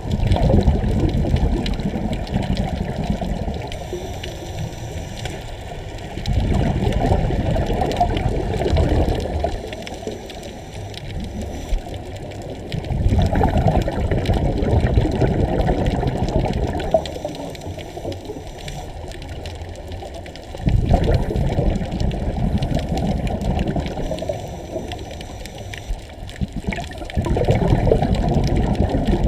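Scuba diver breathing through a regulator, heard through an underwater camera. Five loud bubbling rushes of exhaled air come about every six or seven seconds, with quieter stretches between them.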